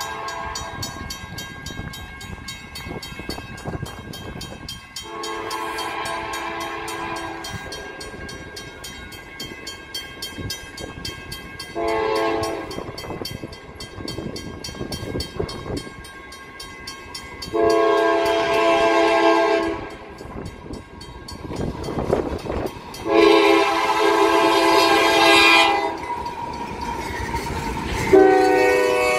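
CSX freight locomotive's air horn sounding a string of blasts for a road crossing: a long blast, a short one, two more long ones, and another beginning near the end. The horn is several notes at once, over the approaching train's rumble. Near the end the locomotive rolls past close by.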